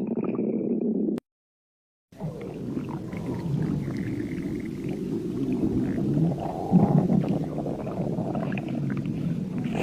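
Stomach growling: long, low gurgling rumbles. They break off about a second in, and after a second of dead silence they resume and run on continuously, with a louder gurgle a little past the middle.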